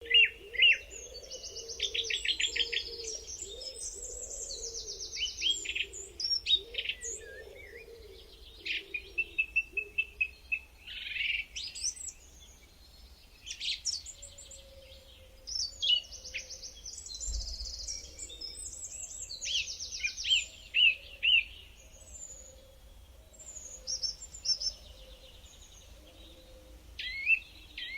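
A songbird singing a long run of varied phrases: fast trills, rapid strings of repeated chirps and quick sweeping notes, with short pauses between phrases.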